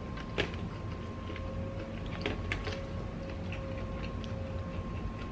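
Close-miked eating sounds: scattered soft clicks and smacks as food is chewed and picked from a seafood boil with the fingers, a cluster of them around the middle, over a steady faint hum.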